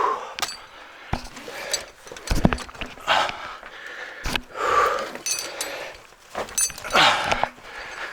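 A person breathing hard and grunting in several long heaves while squeezing up through a tight cave passage, with knocks and scrapes of gear against rock and ice in between.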